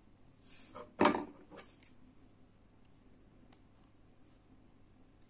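Hands handling a woven macramé keychain and a pair of scissors: a rustle that rises into one loud knock about a second in, then a few faint clicks as the scissor blades are brought up to a loose thread.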